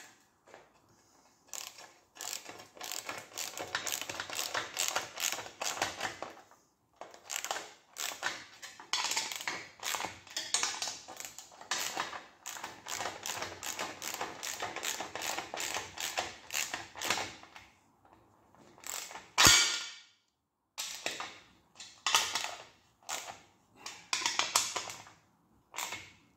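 Hand ratchet clicking in long rapid runs as the side bolts of a motorcycle licence-plate holder are tightened, with a pause and one sharper knock about two thirds of the way through.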